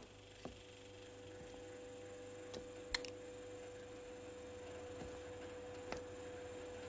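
A steady hum on one tone, slowly swelling, with a few sharp isolated clicks, the loudest about three seconds in.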